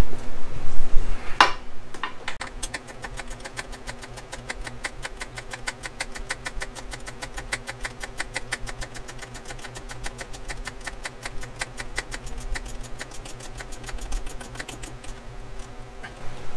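Ratchet wrench clicking rapidly and evenly, several clicks a second, as the exhaust's mounting bolt is tightened down. A couple of metal clanks come first, and a steady low hum runs under it.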